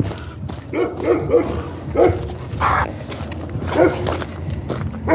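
Dog giving short, excited yips and barks, about five over a few seconds, while it plays with the zoomies.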